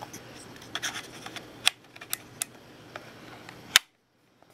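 A series of sharp plastic clicks and snaps as the battery-compartment cover on the back of a Tecsun PL-398MP portable radio is handled and closed. The two loudest snaps come about a third of the way in and near the end.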